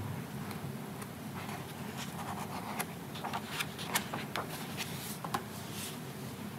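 Paper pages of a softcover photo zine flipped quickly by hand: a run of crisp rustles and sharp snaps, starting about a second and a half in and dying away near the end, as the zine is closed.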